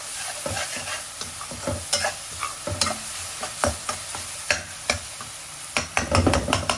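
Slotted metal spoon scraping and clicking against a metal karahi as chopped onion and tomato masala fries in oil with a steady sizzle. The clicks come thicker about six seconds in.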